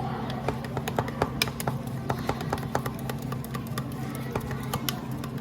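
Background music with a run of light, irregular clicks and taps over it.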